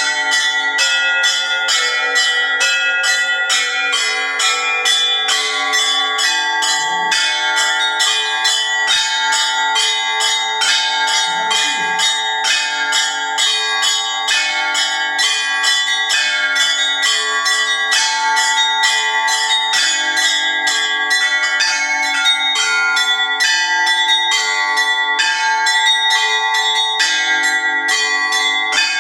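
A set of bells rung in a continuous festive peal, struck several times a second over the sustained ring of many overlapping tones.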